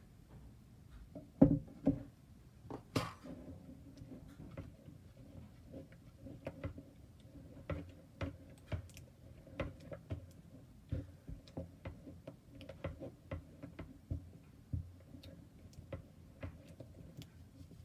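Spatula stirring glue and borax solution in a bowl as the mix thickens into slime, knocking and scraping against the bowl about twice a second, with one louder knock about a second and a half in.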